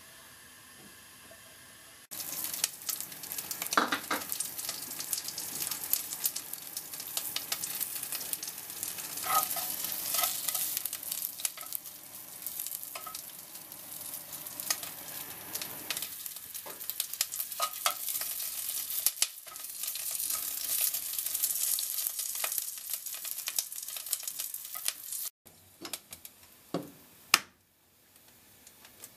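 Sausages frying in hot oil in a nonstick pot over a gas flame: a dense sizzle full of small pops starts suddenly about two seconds in, with wooden chopsticks stirring and turning them in the pan. The sizzle drops away near the end, and there is one sharp knock.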